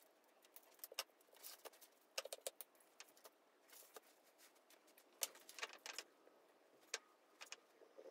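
Faint scattered clicks, ticks and light scrapes of hands working at a sushi mat: a knife spreading cream cheese over a nori sheet on a bamboo rolling mat, and fingers laying tuna on it.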